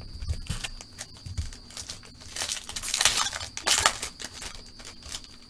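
Trading-card pack wrapper crinkling as it is torn open and handled, loudest in a run of rustling about two to four seconds in, with small taps and clicks of cards being handled around it.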